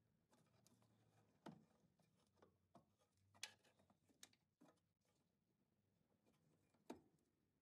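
Faint scattered clicks and light rubbing of electrical connectors being unplugged from the relay board of a Porsche 914 by a gloved hand, a handful of small clicks spread through the quiet.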